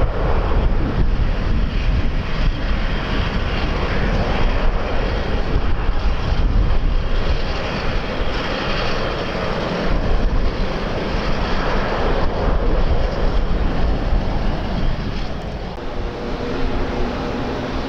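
Airliner engine noise mixed with heavy wind buffeting on the microphone. A faint steady hum comes in near the end.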